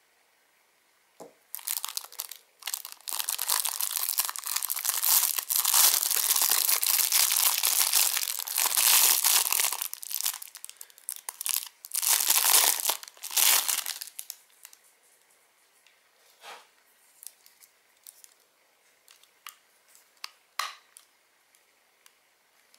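Clear plastic packaging bag crinkling and rustling as a small battery charger is unwrapped from it, continuous for about twelve seconds. After that there are only a few light taps and rustles.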